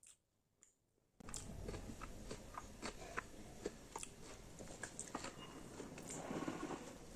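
Close-up eating sounds: biting and chewing, with many small wet clicks and smacks of the mouth, starting abruptly about a second in after near silence.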